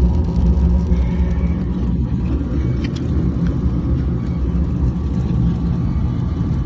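Outdoor wood furnace's draft fan blowing, a steady low hum and rumble.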